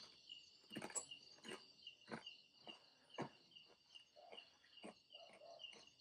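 Faint night-time chorus of crickets and other insects chirping steadily in a high, pulsing trill, about three chirps a second, with soft short clicks about every half second.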